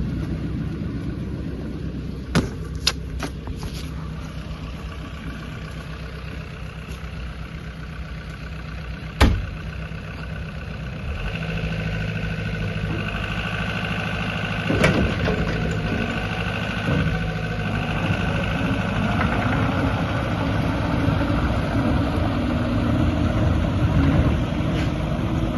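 JCB 86C-1 midi excavator's diesel engine running. A few sharp clicks come about two to four seconds in and a single loud knock about nine seconds in. From about eleven seconds the machine grows louder and a steady whine joins the engine.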